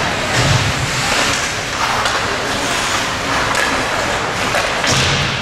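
Steady rushing noise of an ice hockey game in progress, with scattered short scrapes and knocks.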